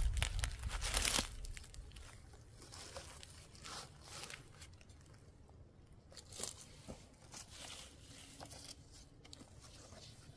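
Rustling and crunching of cloth and firewood as a person settles against a bundle of sticks on stony ground, loudest in the first second. After that come faint scattered rustles and small clicks, with one short louder rustle midway.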